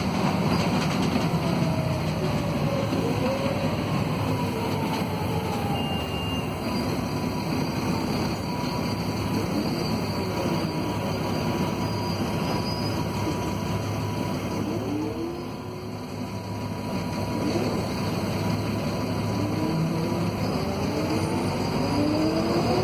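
Volvo B7RLE bus's D7C six-cylinder diesel heard from inside the cabin, pulling hard through the gears of its ZF Ecomat 2 automatic. The engine pitch climbs and drops back with upshifts near the start, eases off and quietens briefly past the middle, then climbs again near the end.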